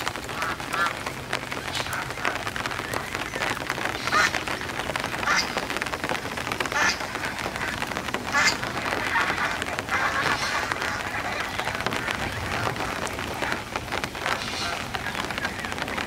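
A flock of domestic geese calling on and off, their calls coming repeatedly throughout.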